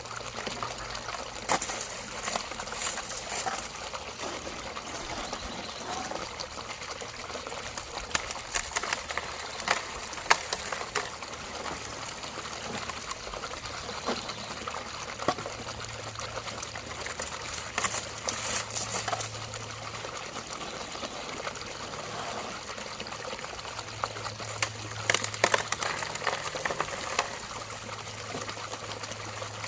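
Running water, steady, with several short spells of sharp clicking and rattling.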